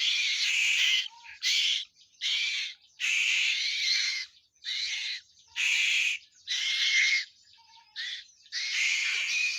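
A bird giving a series of harsh, hissing screeches, about nine in all, each lasting from a fraction of a second to about a second, with short pauses between them.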